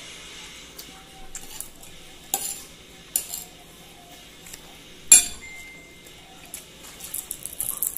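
Metal spoon and fork clinking and scraping on plates while eating, in scattered light clicks. About five seconds in comes one sharp clink, the loudest, which rings briefly.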